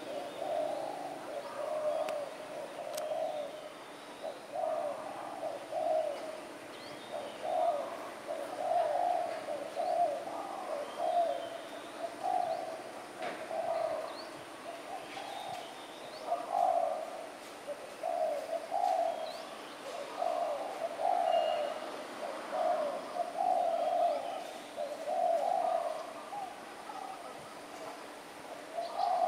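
Spotted doves cooing, a coo phrase about every second almost without a break, with faint chirps of small birds in the background.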